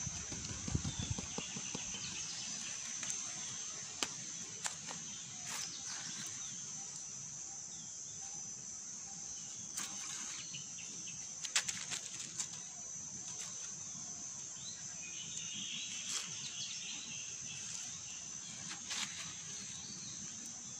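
Steady high-pitched insect drone, with a few faint bird chirps, loudest a little past the middle, and several short sharp clicks of rustling in the undergrowth.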